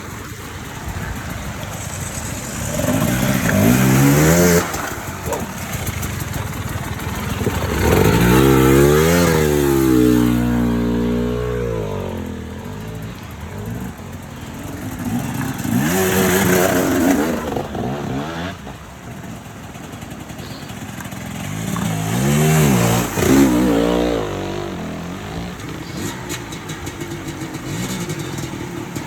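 Motorcycle engine revving in about four surges, its pitch climbing and falling back each time, with lower running between.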